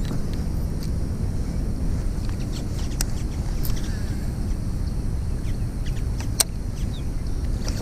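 Steady low rumble of wind buffeting the microphone outdoors on open water, with a few sharp clicks, the loudest about six seconds in, and faint bird chirps.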